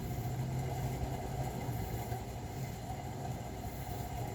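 A steady low machine hum with a faint even background noise.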